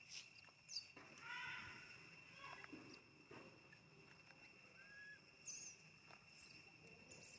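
A baby monkey's faint, short cry about a second in and a brief high squeak near five seconds, over a steady insect drone.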